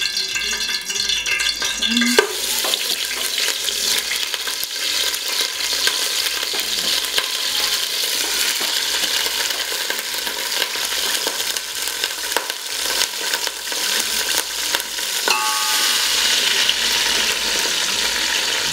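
Raw meat pieces on the bone dropped into hot oil in an aluminium pot, sizzling as they fry. The sizzle starts suddenly about two seconds in and grows a little louder near the end as more pieces go in.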